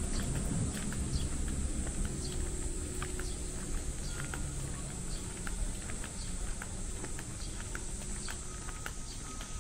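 Footsteps on a stone-paved street at walking pace, short light clicks about every half second to second, over a steady high hiss and a low outdoor rumble.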